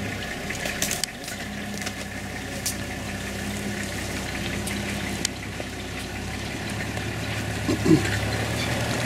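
African elephants drinking from a swimming pool: water sloshing and splashing as their trunks draw it up, over a steady low hum. A brief wavering pitched sound comes about eight seconds in and is the loudest moment.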